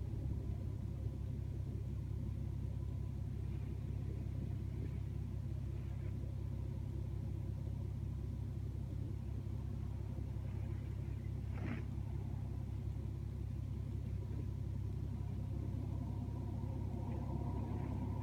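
Strong wind buffeting the microphone: a steady low rumble, with a humming tone growing louder near the end.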